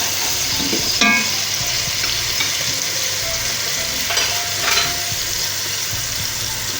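Onion-and-spice masala sizzling in hot oil in a pot while it is stirred and fried, the spoon scraping the pot. A metal clink about a second in, and a few more scrapes near the end.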